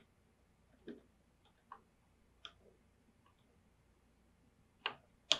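A few faint, scattered clicks, then sharper computer keyboard keystrokes near the end.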